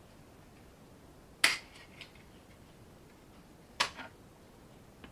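Two short, sharp clicks about two seconds apart, each followed by a smaller tick, over faint room tone.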